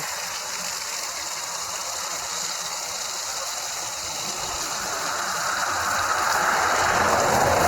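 Steady rush of a rain-swollen waterfall, with a vehicle approaching on the highway, its engine and tyre noise swelling from about halfway through.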